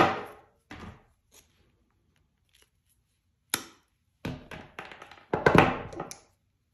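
Knipex diagonal side cutters snapping through a black insulated cable with one sharp snip about three and a half seconds in. Around it, steel pliers knock and clatter against a wooden workbench as they are picked up and set down, loudest shortly before the end.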